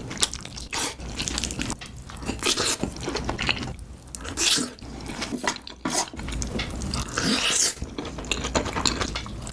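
Close-miked eating: wet chewing, smacking and small crunches from a mouthful of food, many short clicks in quick succession.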